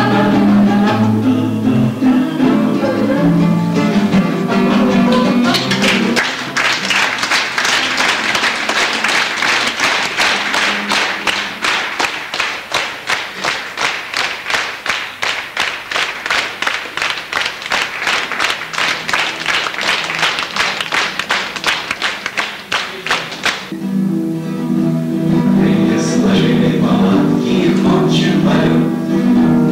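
A small vocal group singing to an acoustic guitar stops about six seconds in, and the audience applauds for about seventeen seconds, the claps falling into an even rhythm. Near the end the guitar and voices start again.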